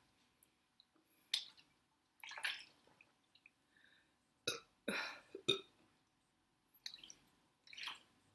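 A woman drinking cola in gulps: a string of short, wet swallowing sounds, about seven in all, spaced irregularly.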